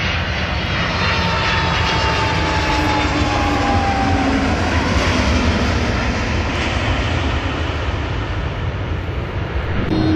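Airbus BelugaST's two turbofan jet engines running loud as the plane touches down and rolls out on the runway, with a thin whine that falls slowly in pitch over the first few seconds. Near the end the sound changes to a steadier engine hum with a low, even tone.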